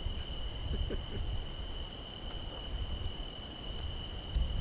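A cricket trilling steadily on one high pitch, over a low rumble.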